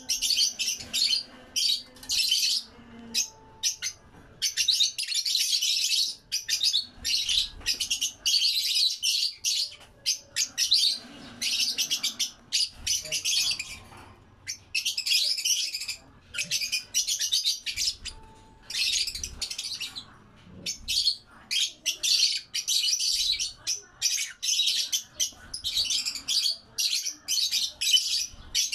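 A flock of caged peach-faced lovebirds chattering: rapid, shrill chirps in dense bursts that run almost without a break, with short pauses between them.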